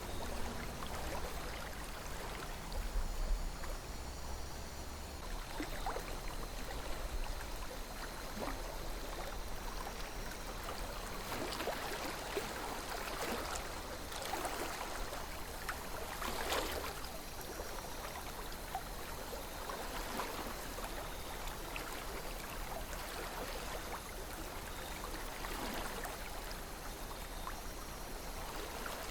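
Calm river flowing: a steady rush of water, with occasional brief gurgles and small splashes standing out a few times.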